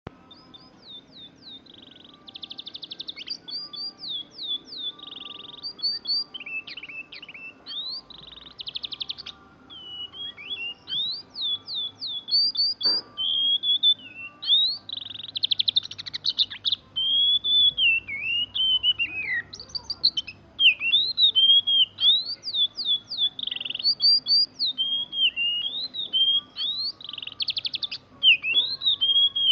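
Oriental magpie-robin (kacer) singing a continuous, varied song of slurred whistled notes and rapid trills, with barely a pause between phrases.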